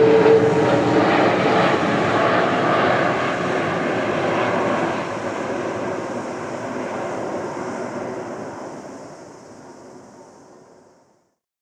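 Air Asia X Airbus A330-300's Rolls-Royce Trent 700 turbofans as the airliner passes overhead on landing approach: jet noise with a steady hum that fades in the first two seconds, then the rushing sound dies away steadily as the plane moves off, gone about eleven seconds in.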